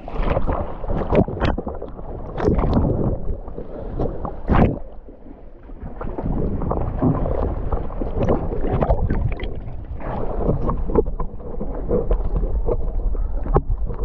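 Choppy sea water sloshing and splashing over a waterproof action camera held at the surface, with wind buffeting the microphone. Irregular slaps and washes of water over a constant low rumble.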